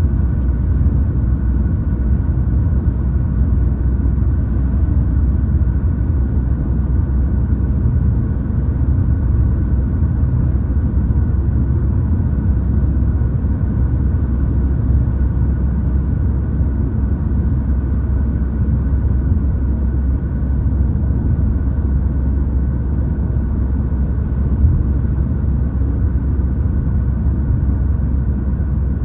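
Steady low rumble of tyre, road and engine noise inside a car's cabin while driving at an even speed, with a faint steady hum above it.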